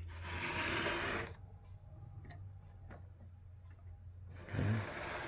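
Handling of a 1929 Continental portable typewriter: a rubbing, sliding noise lasting about a second, a few light mechanical clicks, then another rub near the end.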